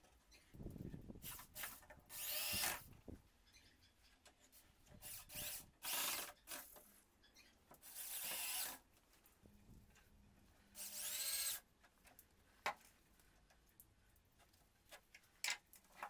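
Cordless drill run in four short bursts into the edge of a furniture laminate board, its motor whine rising and falling with the trigger. A few sharp knocks follow near the end.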